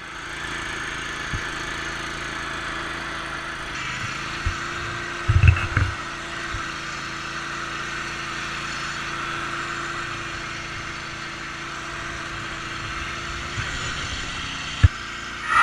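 A small engine running steadily at an even speed, with a few low thumps about five seconds in and one sharp knock near the end.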